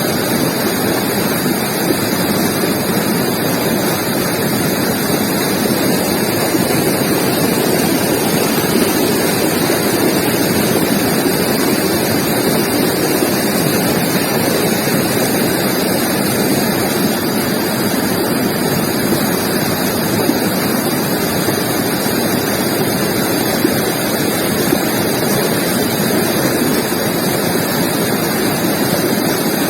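River water rushing steadily over rocks, a constant full roar of flowing water.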